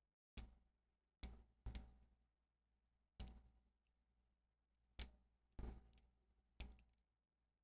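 Faint, irregular clicks of metal lock picks and a tension wrench working in the slider keyway of a bicycle U-lock, about seven in all.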